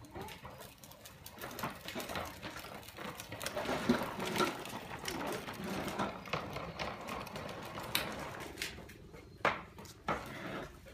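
Hard plastic wheels of a child's ride-on trike rattling and clattering as it rolls over paving tiles, with a few separate sharp clacks near the end.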